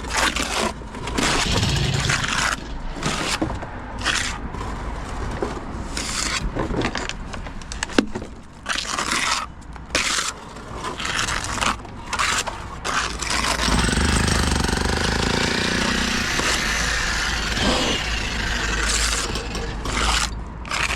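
Building work: irregular scraping strokes and knocks, then a machine or power tool runs steadily for about five seconds, followed by more scraping.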